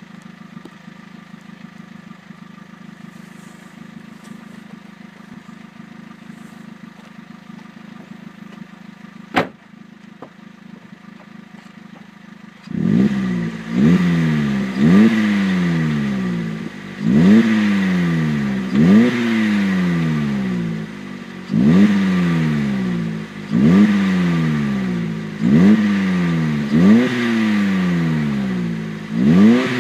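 2003 Vauxhall Corsa C SXi engine sounding through its twin-tip exhaust. It idles steadily, with a single sharp click, then a little under halfway in it is revved again and again. Each blip climbs quickly and falls back, about one every two seconds.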